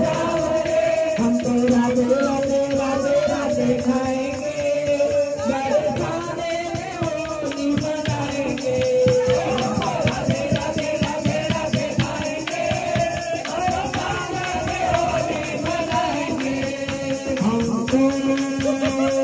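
Devotional song playing, with a sung melody over a busy jingling, rattling percussion beat.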